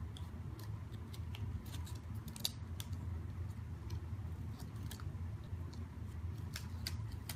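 A small folded paper sheet of temporary tattoos being unfolded by hand: scattered, irregular crinkles and crackles of paper, over a steady low hum.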